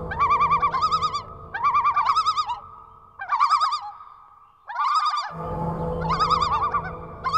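Sci-fi electronic computer sound effect: short bursts of rapidly warbling synthetic bleeps, repeating in phrases with gaps between them, over a low machine hum. The hum drops out about three seconds in and comes back a little after five seconds.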